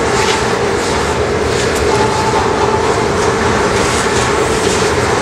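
Steady rushing noise of a glass studio's gas-fired furnace burners and blowers running, with a constant hum in the middle range.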